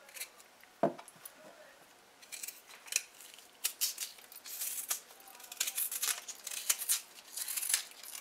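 Kitchen knife scraping and cutting the thick brown skin off a cassava root, in a run of short, scratchy strokes that come thicker after the first couple of seconds. A brief falling tone sounds about a second in.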